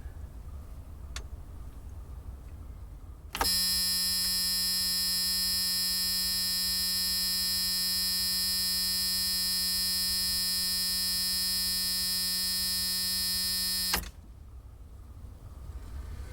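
Electric buzzer sounding one long, steady, harsh buzz for about ten seconds, starting a few seconds in and cutting off abruptly, over a low background rumble.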